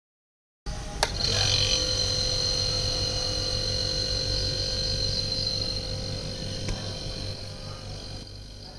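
A refrigerator's hermetic compressor, wired to a bank of capacitors, clicks on about a second in and then hums steadily, with a faint high whine over it. The hum slowly fades over the last few seconds.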